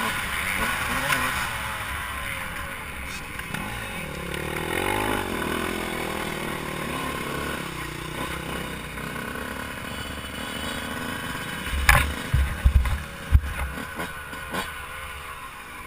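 Dirt bike engine running at low revs as the bike rolls along, with a rev that rises and falls about five seconds in. Near the end comes a quick cluster of sharp knocks.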